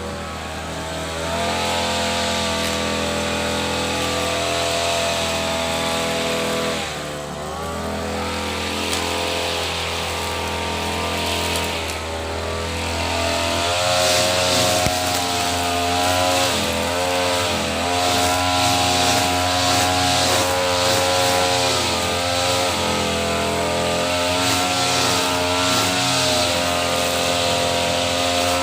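Petrol brush cutter engine running at high revs, its pitch repeatedly dipping and recovering. It runs louder and more unevenly from about halfway through.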